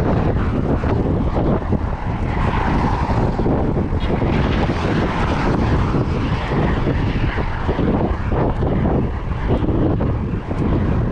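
Strong wind buffeting the microphone during a ride, a dense, heavy rumbling rush that rises and falls with the gusts.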